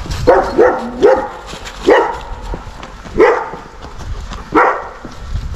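A guard dog barking at a dog walking past its fence: about six barks, three quick ones in the first second, then single barks a second or so apart.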